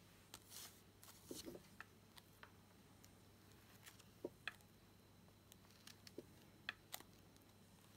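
Near silence broken by faint, scattered taps and brief scrapes as a small encaustic painting iron and a block of pigmented beeswax are worked over card.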